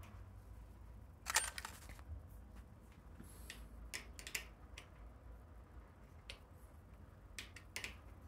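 Scattered light clicks and taps of small hand tools being handled at a workbench, with a louder clatter about a second and a half in.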